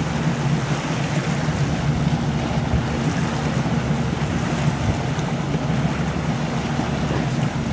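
A 32-foot cabin cruiser's engine running steadily, a constant low hum, with water and wind noise over it.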